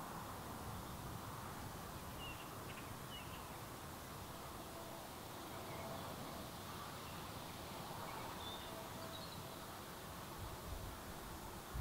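Outdoor countryside ambience: a steady background hiss with a few faint, distant bird chirps, and a brief low rumble near the end.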